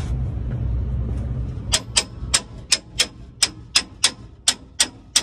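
A hammer strikes the steel leaf spring pack of a truck's rear suspension, knocking the leaves apart. About eleven sharp, ringing metal-on-metal blows come at roughly three a second, starting nearly two seconds in, after a steady low hum.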